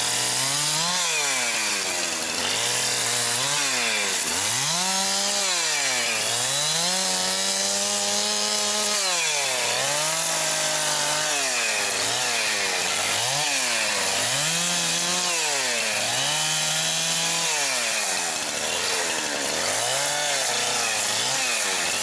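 Two-stroke chainsaw limbing a downed tree, its engine revving up into each cut and dropping back over and over, about once every second or two. One longer cut is held near full revs about seven seconds in.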